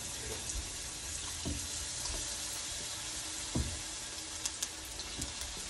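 Hot oil sizzling steadily as battered cauliflower florets deep-fry in a small kadai, with a few soft knocks from a spoon stirring batter in a steel bowl.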